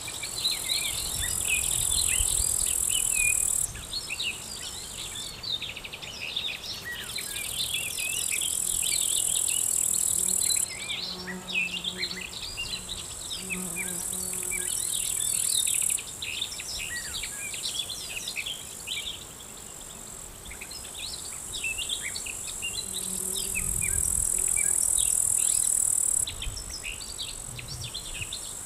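Summer field ambience of insects: a shrill high trill that starts and stops abruptly in stretches over dense short high chirping. A bee buzzes by briefly a few times.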